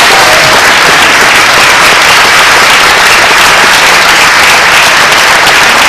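Audience applauding loudly and steadily, a dense wash of many hands clapping in a theatre hall.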